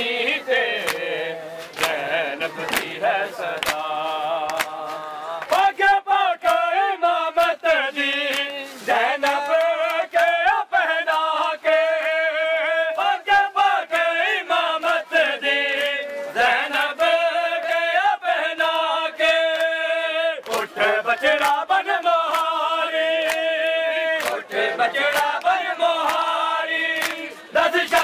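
Male voices chanting a Shia mourning lament (nauha), sung in long wavering phrases with brief breaks, while hands slap bare chests in matam with sharp, regular claps about once or twice a second.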